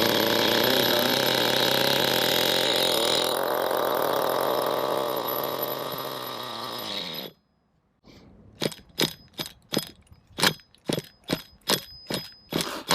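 Small nitro RC engine running roughly and loudly, a little weaker toward the end, before cutting off. After a break comes a run of short, sharp rattling strokes, about two or three a second.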